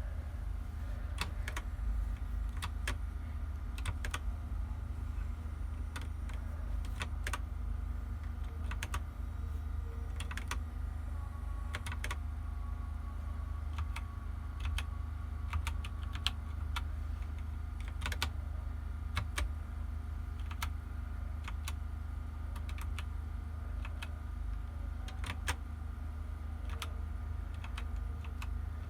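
Keys of a Redragon 61-key mechanical keyboard being pressed, irregular clicking keystrokes, singly and in small clusters, over a steady low hum.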